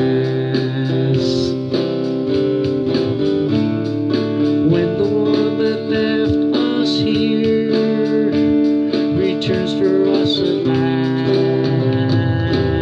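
Harmonica in a neck rack playing an instrumental passage of long held notes and chords, over a steadily strummed guitar.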